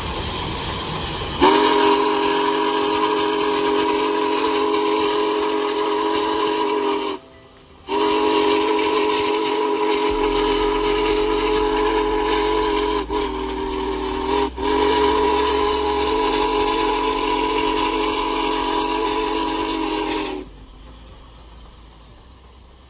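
Union Pacific Big Boy No. 4014 steam locomotive's chime whistle blowing, several notes sounding together as one chord: a blast of about six seconds, a short break, then a long blast with two brief dips. It cuts off near the end, leaving only a faint fading noise.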